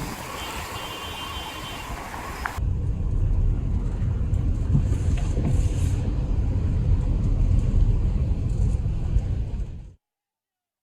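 Outdoor street sound: an even hiss, then after an abrupt cut a heavy, uneven low rumble of road vehicles that stops suddenly near the end.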